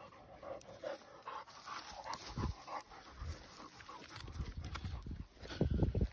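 Large mastiff dog panting in quick breaths, with a run of low thuds that is heaviest just before the end.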